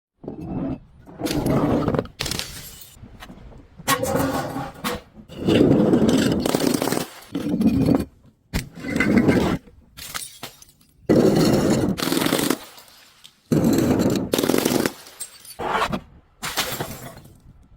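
A rapid series of crunching, breaking sounds as objects are crushed, about a dozen separate bursts of a second or so each with short gaps between them.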